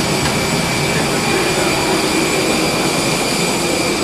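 Steady loud rush and rumble with a high whine over it, the ground noise of a parked Airbus A320 at the gate with its auxiliary power unit and air conditioning running.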